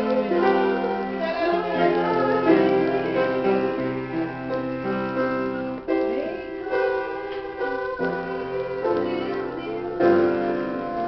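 Grand piano playing a slow accompaniment of held chords, with a woman's voice singing along.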